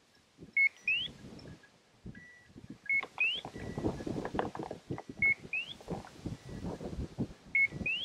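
A bird dog's beeper collar repeating a short beep followed by a quick rising chirp about every two seconds, the point-mode signal that the dog is standing on point. From about three seconds in, boots swish through tall dry grass.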